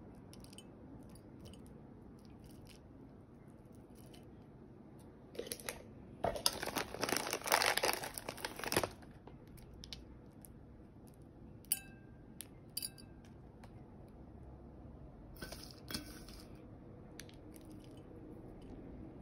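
Toppings going onto a crisp, lacy ghevar on a ceramic plate: a dense crackling for a couple of seconds in the first half, then a few light clinks of small pieces landing on the plate.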